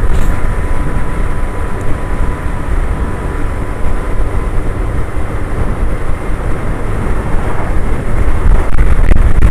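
Suzuki Hayabusa's inline-four engine running steadily at cruising speed, mixed with wind and road noise on the rider's microphone.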